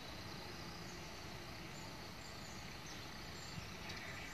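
Faint, steady outdoor background of a forest, with a few faint, short high chirps near the end.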